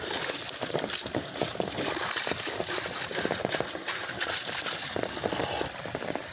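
Rain falling, a steady hiss with many small drops ticking irregularly on hard surfaces.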